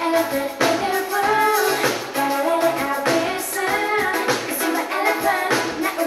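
A woman singing a pop song live into a handheld microphone, over instrumental backing with sharp beats.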